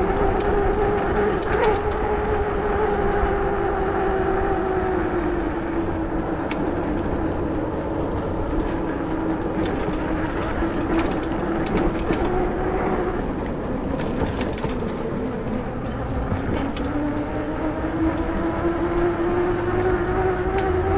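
A ridden vehicle on the move: a steady motor whine that sinks slowly in pitch as it slows and climbs again about two-thirds of the way through as it speeds back up, over wind and road rumble, with a few scattered clicks.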